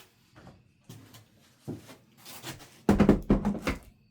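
Handling noise from plastic cordless tools and a battery: a few light knocks, then a louder cluster of clunks about three seconds in, as a 20 V battery is fetched and fitted.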